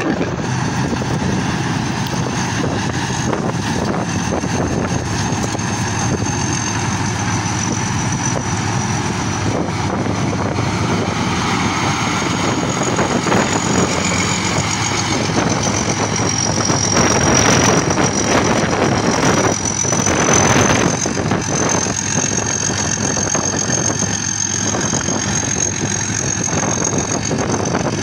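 Thai-built tracked rice combine harvester running in a wet paddy while harvesting: a steady engine drone with a thin high whine over it, growing louder about two-thirds of the way through as the machine passes close.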